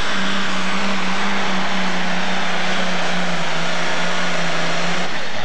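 Super stock pulling tractor's engine running flat out under full load as it drags the pulling sled down the track, a loud steady drone. Its pitch dips slightly near the end.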